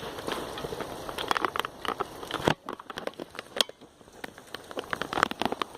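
Rain pattering, with many scattered sharp clicks and taps. The steady hiss drops away suddenly about two and a half seconds in, while the clicks go on.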